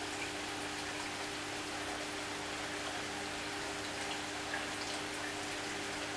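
Reef aquarium running: a steady fizz and trickle of circulating water over a constant low hum from the tank's equipment, with a few small drip-like ticks.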